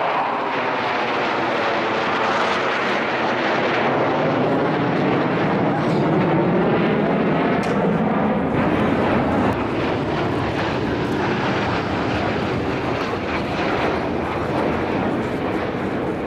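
Jet noise from Chengdu J-10 fighters flying past in formation: a loud, steady rushing sound whose pitch sweeps as the aircraft go by.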